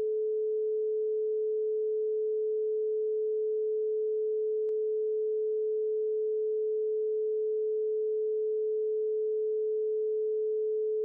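Steady pure sine-wave tone at 432 Hz, held unbroken at one pitch with no overtones.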